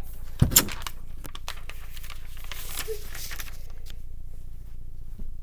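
Rustling and knocking close to the microphone from the camera being handled: two sharp knocks about half a second in, then scattered crackling that dies away a little past the middle, over a low steady hum.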